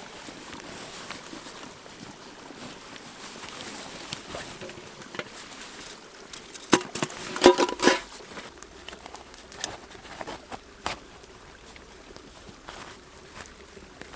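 Steady rush of river water under scattered small clicks and crackles, with a brief cluster of sharp knocks and clinks about seven seconds in.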